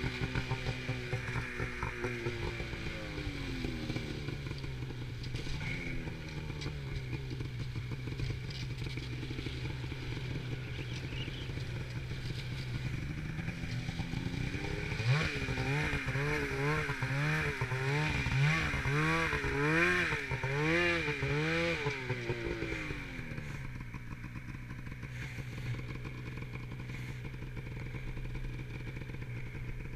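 Polaris RMK snowmobile's two-stroke engine under way: it winds down in the first few seconds and runs low and steady. About halfway through it revs up and down over and over, roughly once a second, for several seconds, then settles back to a low steady run.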